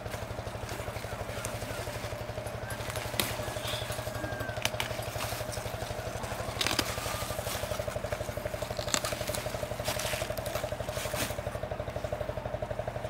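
Leafy greens being picked by hand, with a few scattered snaps and crackles of leaves and stems breaking off, over a steady, evenly pulsing motor drone.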